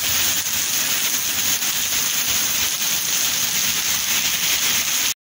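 Heavy rain pouring onto paved ground, a steady, dense hiss. It cuts off abruptly right at the end.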